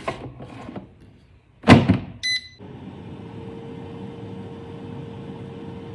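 An air fryer basket is pushed shut with a sharp clack, the fryer gives a short beep, and then its fan starts running with a steady hum and a faint whine.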